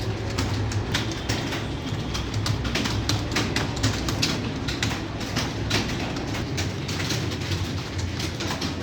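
Many computer keyboards clattering at once, with fast irregular key clicks from several typists, over a steady low hum.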